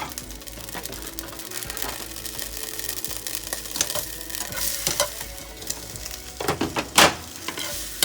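Bell peppers, onion and cherry tomatoes sizzling in hot oil in a frying pan while they are stirred, the utensil clicking and scraping against the pan, with one loud scrape about seven seconds in.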